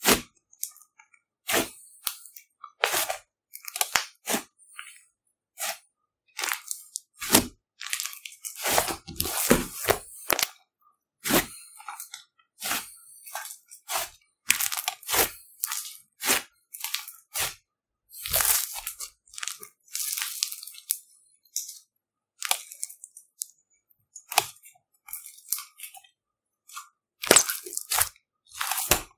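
Fluffy slime squished, folded and stretched by hand, crackling and popping in short irregular bursts with brief pauses between.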